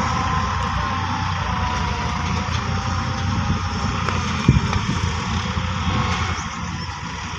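Heavy diesel engine running steadily, with a single knock about four and a half seconds in.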